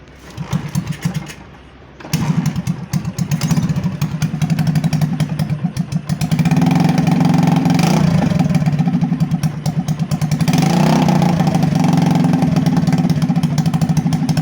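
70cc single-cylinder motorcycle engine starting: a short burst of firing that dies, then it catches about two seconds in and runs, revved up and down several times. The owner says this engine sometimes gives a 'wet' sound, as if it is drinking too much petrol, and suspects an oil leak or the PZ30 carburettor's air mixture.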